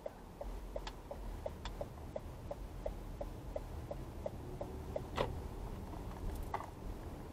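Car turn-signal indicator clicking steadily in the cabin, about three ticks a second, stopping a little under five seconds in as the car completes its turn. A single sharper click follows just after, over a low rumble of engine and road.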